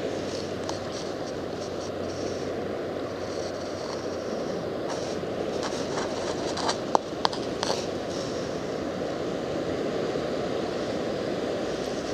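Steady wash of surf and wind around a wader standing in the ocean. A few sharp clicks and knocks come about halfway through as the spinning reel is worked against a heavy load on the line.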